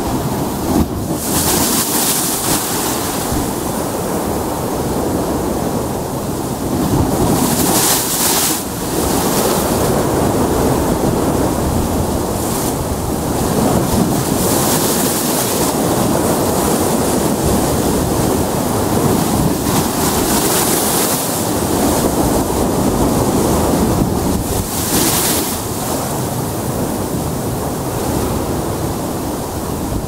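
Choppy sea surf washing and breaking against a rocky shore: a steady rushing wash with a louder hissing splash every five or six seconds.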